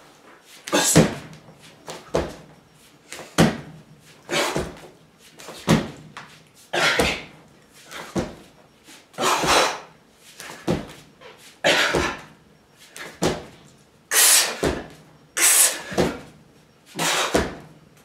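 A man huffing out a sharp breath with each one-arm push-up rep, about one every second or so, steady and rhythmic.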